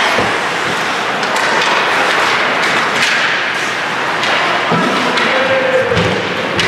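Ice hockey play in a rink: scattered thuds and taps of sticks, puck and boards over a steady rink noise.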